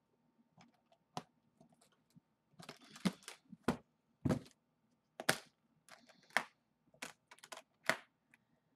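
Metal clip latches and the metal-trimmed frame of a makeup train case clicking and knocking as the case is handled: an irregular run of sharp clicks and thunks, the busiest stretch about three to five seconds in.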